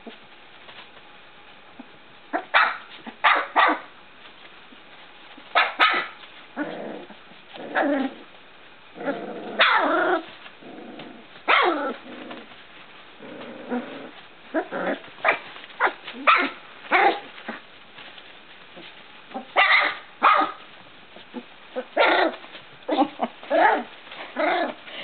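Three-week-old puppies yipping and giving small barks. The short calls come singly and in quick clusters of two or three, some falling in pitch, with quiet gaps between.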